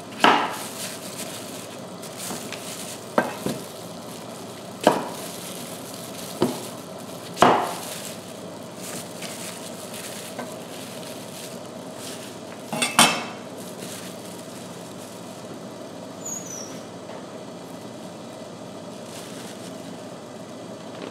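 Water heating in a steel pot with a steady hiss, under a series of sharp knocks and clatters as butternut squash pieces are handled on a wooden cutting board, the last and loudest pair about thirteen seconds in.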